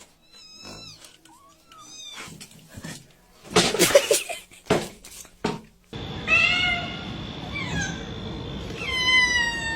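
Cats meowing: several short meows, then a loud burst of noise about four seconds in. After that come long, drawn-out meows that fall in pitch near the end.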